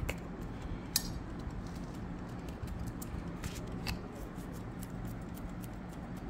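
A few light clicks and ticks from a plastic garlic powder shaker jar being shaken and handled, a sharp one about a second in and a couple more near four seconds, over a steady low room hum.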